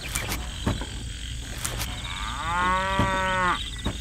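A cow moos once, a single call of a little over a second that begins about two and a half seconds in.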